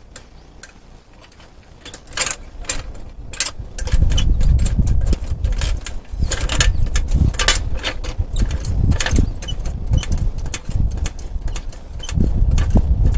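Sharp metallic clicks and clanks of hand tools at work during a car tyre change, with a heavy low rumble from about four seconds in.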